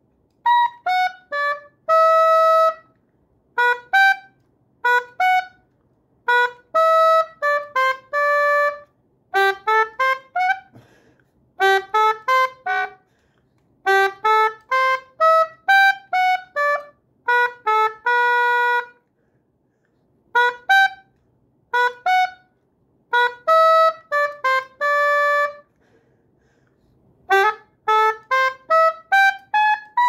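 Solo black keyed woodwind playing a tune in short phrases of quick notes, rising and falling, with some notes held about a second and brief silences between phrases. It is a learner's playing after about eight and a half months of practice.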